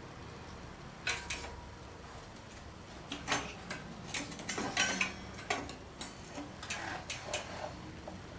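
Light metallic clicks and clinks at irregular intervals, about a dozen, from tools and bike parts being handled during assembly.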